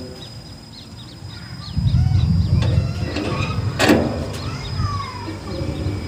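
A satellite dish's pole mount being turned by hand, with a sharp metallic knock about four seconds in. A low rumble sets in about two seconds in, and birds chirp faintly in the background.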